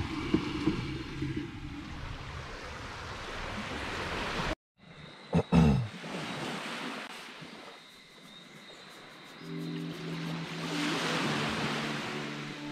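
Steady noise of surf and wind on the beach, broken by an abrupt cut about four and a half seconds in, followed by a brief loud falling tone. Soft background music with steady notes comes in over the surf near the end.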